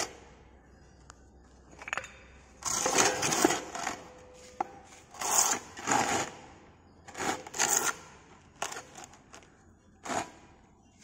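Moulding boxes and split-pattern pieces being handled and set down on a moulding board: a series of irregular scrapes, knocks and clatters, the longest about three seconds in.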